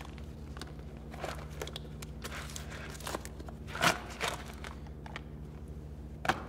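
Crinkling and rustling of a paper parts packet being handled and opened, with a few sharper clicks, the clearest about four seconds in and near the end, over a steady low hum.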